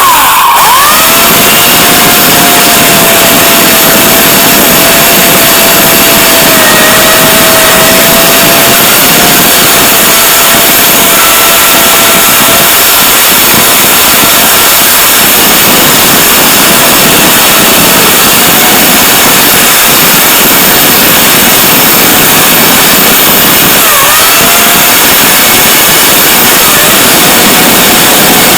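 Electric chainsaw running flat out: a steady motor whine over loud chain noise. It climbs up to speed in the first second, and its pitch dips briefly about 24 seconds in before picking back up.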